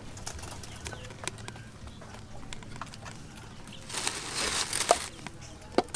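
Lumps of charcoal clicking and knocking as they are set into a clay charcoal stove, with a louder hissing rush lasting about a second near the middle.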